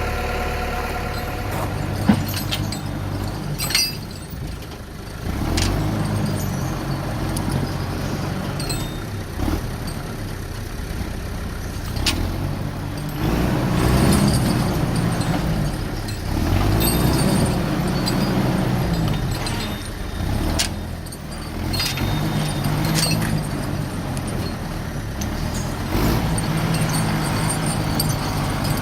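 A vehicle engine running, its pitch rising and falling several times as it revs up and eases off, with scattered knocks and rattles.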